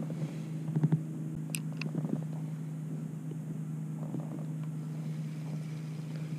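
A steady low mechanical hum at one even pitch, with a few light clicks and rattles of a spinning rod and reel being handled about a second in.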